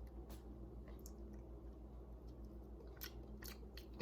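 Faint chewing with a few soft mouth clicks, a taste of freshly kneaded raw dough.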